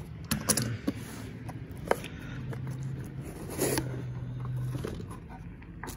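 Cardboard box being handled and opened by hand: cardboard scraping and sliding, with a few sharp taps and clicks.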